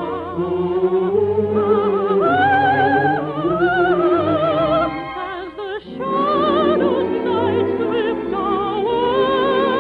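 Orchestral operetta music with long held notes sung or played with vibrato. The music thins out briefly about five to six seconds in, then swells again.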